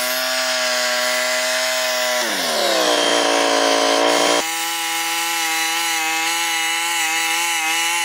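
Wood-Mizer portable bandsaw sawmill running and sawing through a log. Its engine note drops and strains about two seconds in as the blade takes the load, then changes abruptly to a steady, lower tone about four and a half seconds in.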